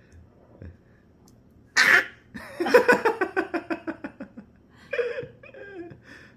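A sharp breathy vocal burst, then a quick run of laughter falling in pitch, followed by a few short gliding vocal sounds from the baby.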